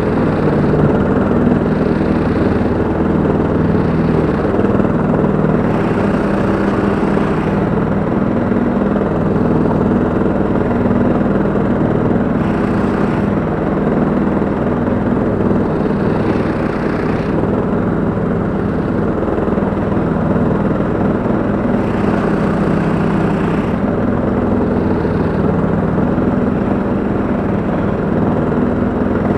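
Petrol engines of a Husqvarna LTH 174 riding lawn tractor and its towed ATV flail mower, running steadily while cutting grass.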